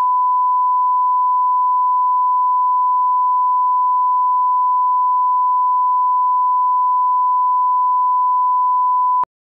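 Steady, unbroken 1 kHz reference tone, the line-up tone that goes with colour bars for setting audio levels. It cuts off abruptly near the end.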